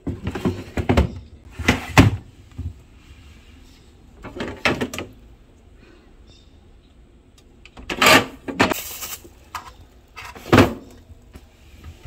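Plastic freezer drawers being slid in and out and knocked into place: a scattering of separate clicks, knocks and sliding rattles with short pauses between them, the loudest about two-thirds of the way through.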